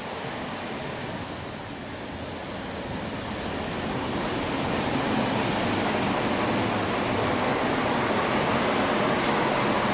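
Steady rushing noise of a standing EU07 electric locomotive with its auxiliary equipment running, growing louder from about three seconds in.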